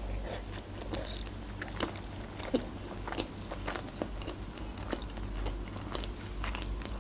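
A person chewing a manti dumpling with the mouth closed, making many short, irregular mouth clicks.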